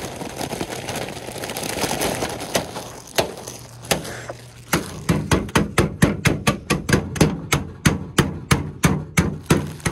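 Blue Heat Takis tortilla chips pouring and rustling into a plastic zip bag. About five seconds in, a pot starts pounding the bagged chips against a pickup tailgate to crush them, with sharp blows about four a second.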